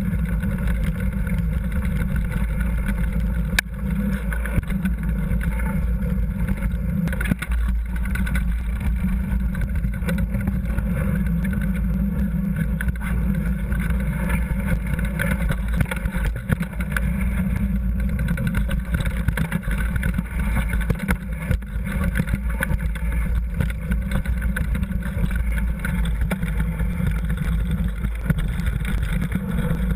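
Mountain bike running fast downhill over gravel and dirt trail, heard from a camera mounted on the bike: a steady deep rumble of wind and tyre and frame vibration, with occasional sharp knocks from bumps, one a few seconds in.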